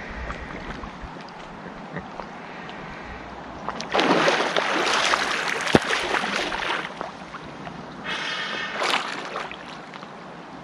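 Water splashing and sloshing at the surface in two bouts. The first is louder and lasts about three seconds from around four seconds in, with one sharp knock in the middle. The second is shorter and comes near the end.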